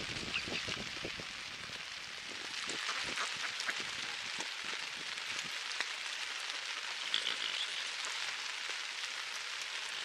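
Rain falling on lake water, a steady hiss, with irregular low knocks during the first few seconds.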